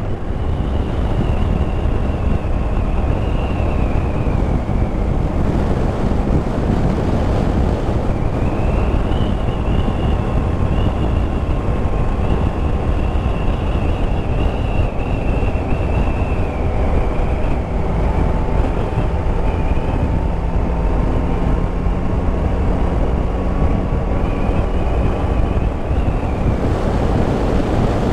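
Motorcycle under way at road speed: heavy wind rush over the camera microphone, with the Yamaha Tracer 9 GT's three-cylinder engine running steadily underneath. A high wavering whine fades in and out several times.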